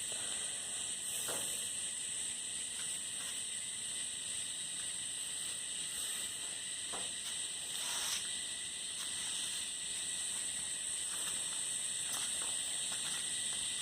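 Steady high-pitched background hiss, with a few faint soft knocks.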